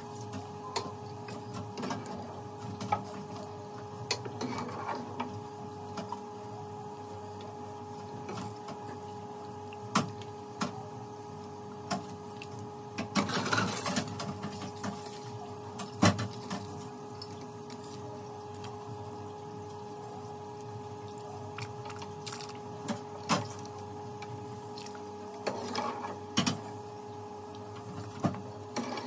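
A steady two-note electrical or machine hum, with scattered clicks and knocks of a metal ladle against a cooking pot of soup, and a short burst of scraping clatter about halfway through.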